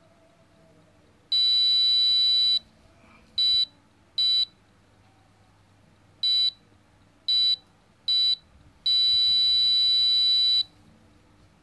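Arduino guard robot's small speaker sounding a high-pitched electronic alarm tone in beeps: a long beep about a second in, five short beeps, then a long beep near the end. The alarm goes off as an object comes close to its ultrasonic distance sensor.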